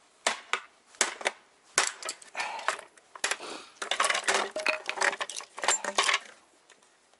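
Hammer blows on a metal rudder bracket fixed to a wooden rudder blade, a series of sharp separate knocks, followed about four seconds in by a denser metallic clatter and scraping as the bracket is wrenched loose from the blade.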